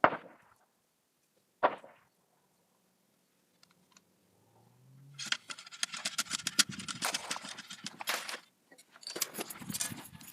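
Handling sounds while a muzzleloading shotgun is loaded with powder and shot: two sharp knocks, then about five seconds of dense metallic rattling and clattering near the end.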